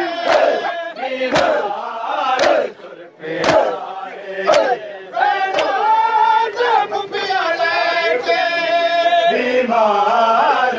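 Mourners doing matam, beating their chests with their hands in unison: a sharp slap about once a second, over a crowd of men's voices chanting. About five seconds in, the slaps fade and the held, chanted lines of the men's voices take over.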